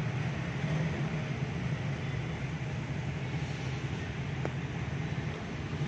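Steady low mechanical drone of a running machine, even and unchanging throughout.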